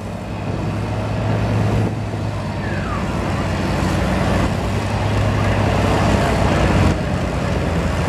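Vintage John Deere farm tractor's engine working hard under load as it drags a weight-transfer pulling sled, a steady low engine note slowly getting louder.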